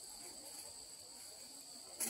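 Faint, steady high-pitched chorus of insects.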